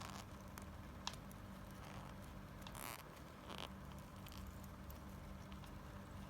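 Faint handling of a toy and its plastic packaging: scattered light clicks and a brief rustle about three seconds in, over a low steady hum.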